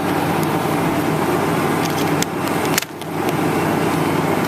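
Steady mechanical hum of a running refrigeration condensing unit, with a few light clicks of handling about two to three seconds in and a brief drop in level just before three seconds.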